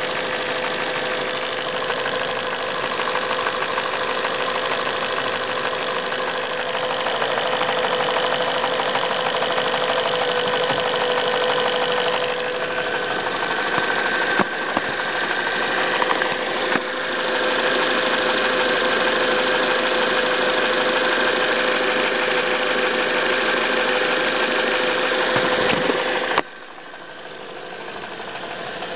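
Toyota Avensis T27 1.8-litre petrol engine running warm with a clattering rattle, which the Toyota dealer judges normal. The sound drops suddenly in loudness near the end.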